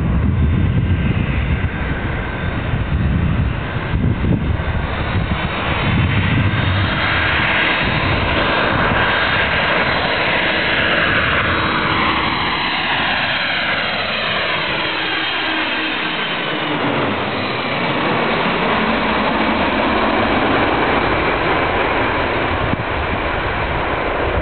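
Jet airliner on short final passing low overhead. The engine noise builds, then its whine sweeps down in pitch as it goes over, a little past halfway, and carries on steadily as it flies toward the runway. Wind buffets the microphone in the first few seconds.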